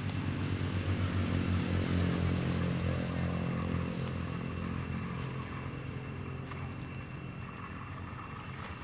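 Engine of a passing vehicle running, swelling over the first few seconds and then slowly fading away.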